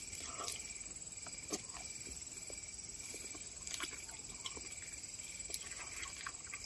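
Faint, steady high-pitched trilling of night insects such as crickets, with a few soft clicks of chewing.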